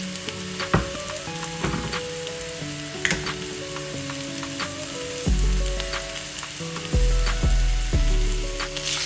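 Pork pieces sizzling in a wok with scattered small crackles, under background music whose bass beat comes in about halfway. Near the end, pineapple juice pours into the pan with a brief hissing splash.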